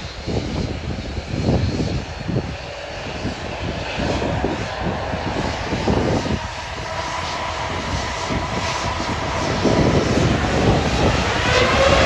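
Boeing 787 turbofan engines running with a steady whine that rises in pitch near the end, with wind buffeting the microphone.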